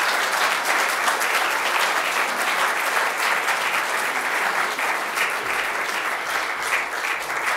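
Audience applauding steadily after a welcome to country.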